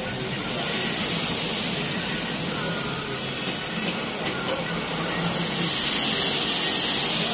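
Automatic car wash air dryer blowing with a steady hiss of rushing air, growing louder about five and a half seconds in.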